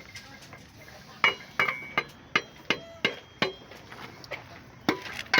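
Hammer blows on metal, each with a short ringing clang: a run of about seven strikes at nearly three a second, a pause, then a few more near the end.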